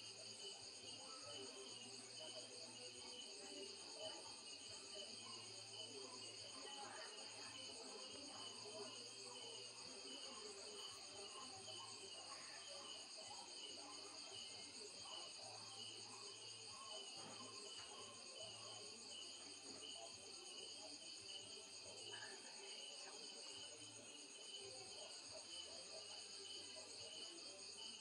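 Faint night chorus of crickets and other insects: several steady high-pitched trills, one of them pulsing rapidly, going on without a break.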